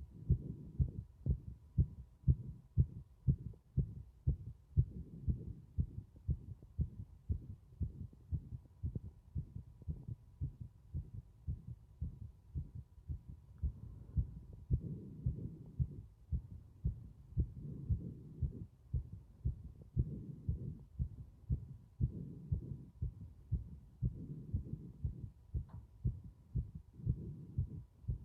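A human heartbeat, a steady train of low lub-dub thumps. Breathing sounds swell and fade with each breath every few seconds.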